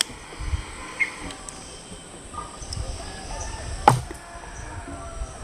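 Outdoor ambience: a steady high-pitched insect drone over a low rumble, with one sharp knock about four seconds in.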